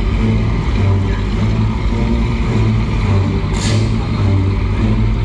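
Stunt-show propeller plane's engine running with a steady low hum, and a short hiss about three and a half seconds in.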